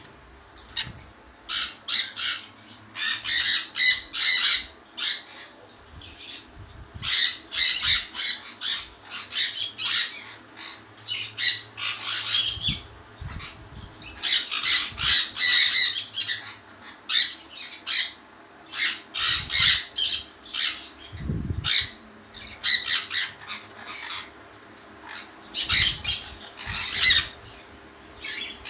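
Caged pet birds squawking and chirping in quick, shrill flurries, with short pauses between them and a few low thumps.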